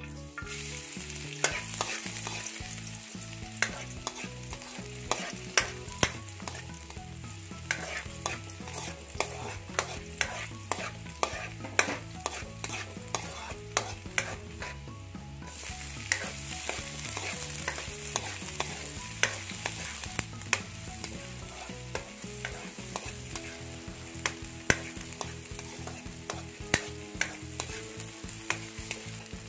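Minced garlic sizzling in hot canola oil in a wok, with a metal spatula scraping and clicking against the pan again and again as it is stirred.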